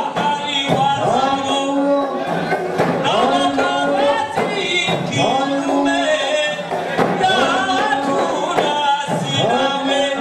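Voices singing together in traditional Comorian tari music, with long wavering, ornamented melodic lines.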